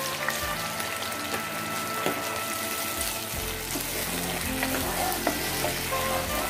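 Hot oil sizzling in a pan as strained mustard paste mixed with water goes in over frying nigella seeds.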